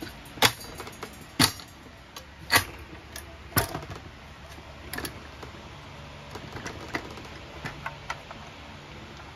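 Knocks and clatter of a turbine's motor assembly and cabinet being handled and turned over on a wooden workbench: about five sharp knocks roughly a second apart, then lighter clicks and ticks.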